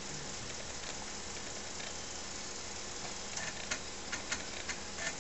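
TRS-80 Model 4 computer running as it boots from floppy disk: a low, steady hum from the machine and its drives, with a few faint clicks in the second half.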